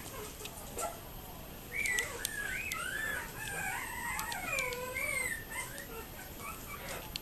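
Yorkiepoo puppies whining: a string of high, wavering squeals that rise and fall in pitch, starting about two seconds in and tailing off near the end, with a few faint clicks.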